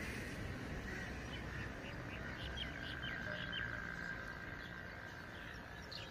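Faint outdoor ambience with birds chirping. Between about two and four seconds in there is a quick run of short, high, falling chirps.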